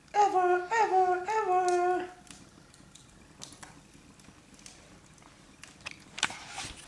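A person humming three drawn-out notes in a row, lasting about two seconds, each note starting with a small dip in pitch. After it come faint rustles and handling clicks.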